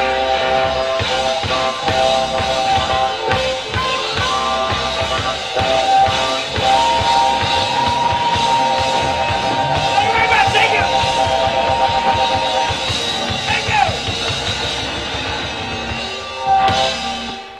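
Blues band playing live: electric guitar, bass guitar, drums and harmonica, with long held notes and a couple of bent notes, and a loud accent near the end.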